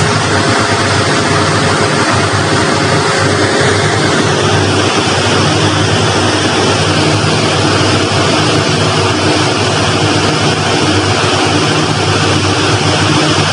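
A fishing trawler's engine and deck machinery run steadily as a loud, even drone, mixed with sea water rushing and splashing over the trawl net on the stern ramp.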